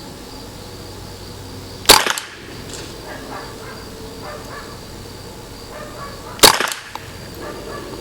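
Two .22LR rifle shots from a Ruger 10/22 Target firing Lapua Center-X match ammunition, about four and a half seconds apart, each a sharp crack with a short ringing tail.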